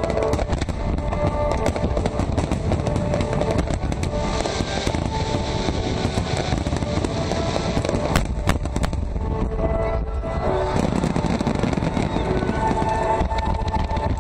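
Aerial fireworks bursting and crackling, with music playing alongside, recorded on a phone. A cluster of sharp cracks comes about eight seconds in.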